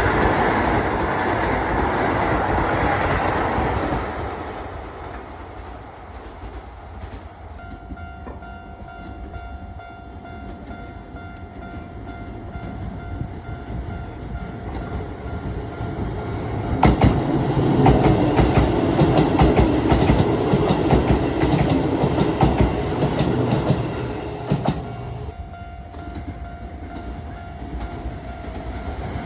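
Electric trains passing a level crossing on the Keisei line: one is loud at first and fades over the first few seconds, and a second grows loud from about halfway through and fades after about seven seconds. A steady tone holds between and under them.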